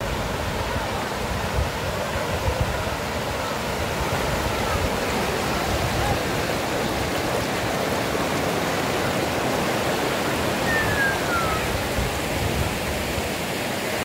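Steady rushing of water from a rocky stream and waterfall, with one short falling whistle about three-quarters of the way through.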